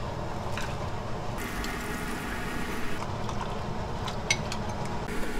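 Soaked glutinous rice poured from a ceramic bowl into a pot of broth, sliding and splashing in, with a metal spoon clicking against the bowl a few times about four seconds in, over a steady low rumble.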